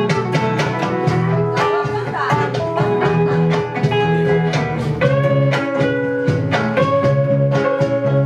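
A small live band of guitars and electric bass playing together: an electric bass, an electric guitar, a steel-string acoustic guitar and a nylon-string classical guitar. Held melody notes ride over the plucked and strummed accompaniment.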